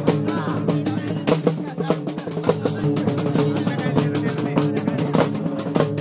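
A group of large double-headed drums beaten with sticks in a fast, dense, loud rhythm, the strikes tightly packed with no break.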